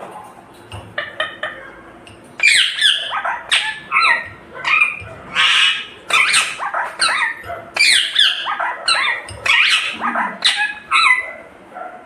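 Indian ringneck parakeet giving a rapid run of loud, sharp squawks, each call a quick glide in pitch, starting about two seconds in and going on almost to the end. A few faint clicks come before the calls.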